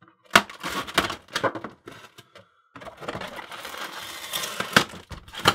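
Packing foam and packaging being handled and pulled apart: sharp clicks and snaps, then a steady crackling rustle from about three seconds in.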